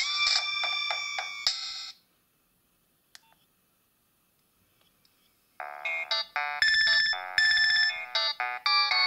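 Nokia 7250i mobile phone playing its ringtones: one melody ends about two seconds in, a faint click sounds in the quiet gap, and a new fast, bright melody of quick notes starts a little past halfway.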